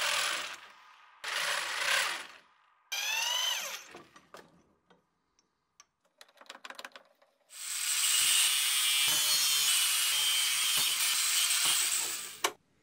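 Power tool in a metal workshop, starting and stopping in short bursts with one motor winding down in pitch, then running steadily for about five seconds before cutting off suddenly, with a few clicks in between.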